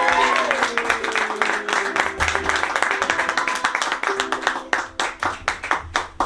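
Audience clapping and cheering at the end of a song, thinning out to scattered separate claps near the end.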